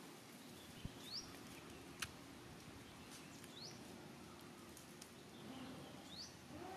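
Faint bird chirps: three short rising calls about two and a half seconds apart, over a quiet outdoor background, with a sharp click about two seconds in.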